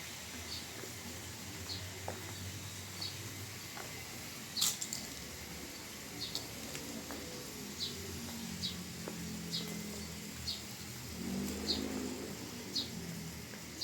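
A bird repeating a short, high chirp about once a second, over a steady low background hum.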